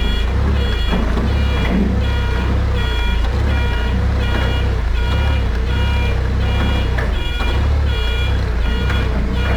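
Toyota forklift reversing, its backup alarm beeping about once every 0.7 seconds over the steady running of its engine.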